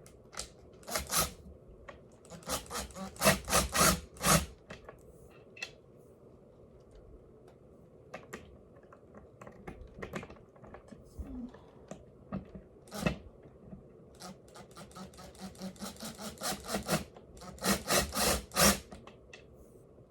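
A cloth rag rubbed back and forth over the table's hardware to wipe off a greasy coating, in bursts of quick strokes with pauses between.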